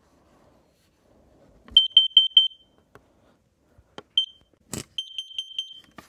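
Kidde carbon monoxide alarm sounding its alarm pattern: a burst of quick high-pitched beeps, a single beep, then another quick burst near the end, the signal that carbon monoxide has been detected. A few sharp clicks fall between the bursts, the strongest just before the second burst.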